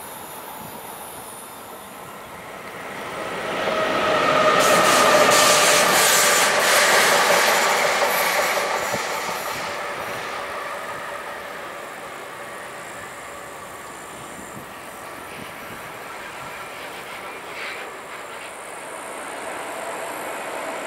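Two coupled Siemens ES 64 F4 (class 189) electric locomotives running as a light engine move without wagons, passing close by with a high whine and rail noise. They are loudest about four to eight seconds in, then fade as they run off down the line.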